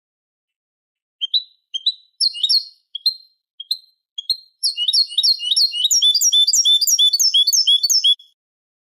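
European goldfinch song from a recording made to tutor young goldfinches: a few separate short chirps, then from about halfway a fast, dense run of repeated notes, several a second, that stops abruptly near the end.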